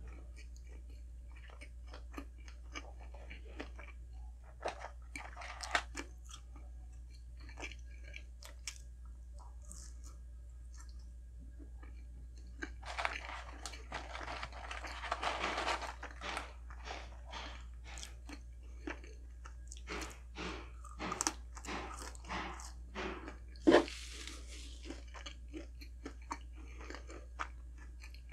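Close-miked biting and chewing of a McDonald's burger: irregular crunches and mouth clicks, with a denser run of chewing in the middle and one sharp, loud click about four seconds before the end.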